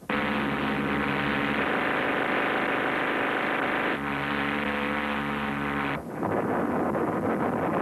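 Steady drone of a C-130 Hercules gunship's turboprop engines in flight. About six seconds in it gives way to a dense crackle of explosions.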